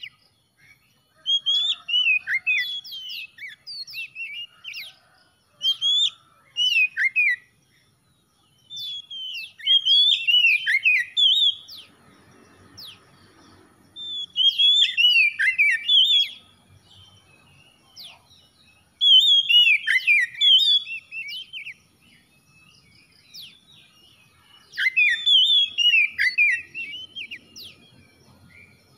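Oriental magpie-robin singing: about six bursts of rapid, varied whistled notes, each about two seconds long, with pauses of a few seconds between them.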